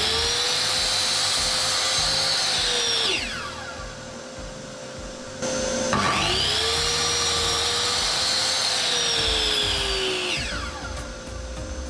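Sliding miter saw cutting wood, twice. Its motor whine is high and steady and falls away about three seconds in as the blade winds down, rises again about six seconds in for the second cut, and falls away again near the end.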